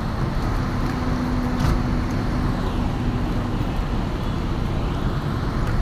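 Large diesel coach engines running close by, a steady low rumble, with a steady low hum laid over it for about three seconds, starting about half a second in.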